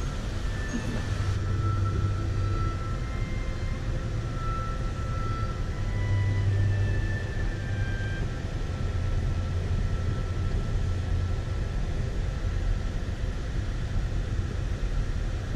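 Steady low rumble of a freight train rolling past, swelling slightly twice, with a few faint short high-pitched tones over it.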